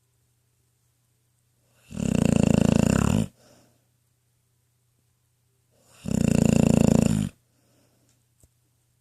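Ten-year-old pitbull snoring in her sleep: two long, rattly snores about four seconds apart, with quiet breathing between them.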